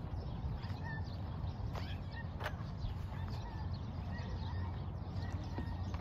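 Outdoor ambience: a steady low wind rumble on the microphone, irregular crunching footsteps on sandy, gravelly ground, and a few faint, short bird chirps.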